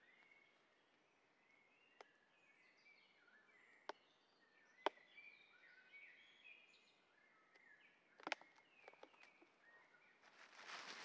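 Faint forest birdsong of many short falling chirps. A few sharp clicks and snaps come from handling a line at a tree trunk, and a rustle of movement swells near the end.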